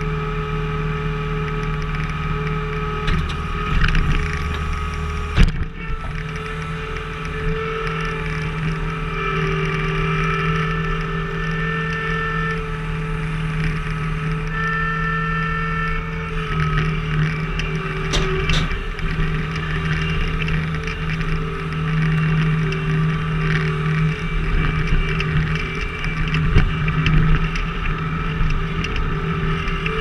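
Skid steer engine running steadily under load while its log-splitting attachment works, with a whine that comes and goes. A couple of sharp knocks fall about five seconds in and again past the middle.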